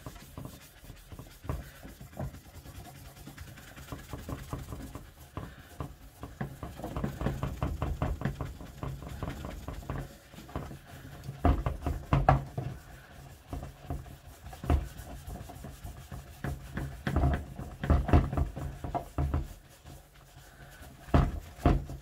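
Cotton wool pad loaded with Brasso scrubbed firmly back and forth over a painted iron longcase clock dial, a dense run of rubbing strokes. The dial shifts and knocks on the cutting mat, with louder clusters of knocks about halfway through and near the end.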